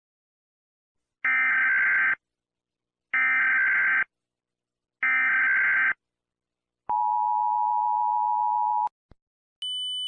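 Emergency Alert System header: three short bursts of SAME digital data tones, each just under a second and about two seconds apart. Then the two-tone EAS attention signal (853 and 960 Hz together) sounds steadily for about two seconds. A click follows, and a higher steady tone begins just before the end.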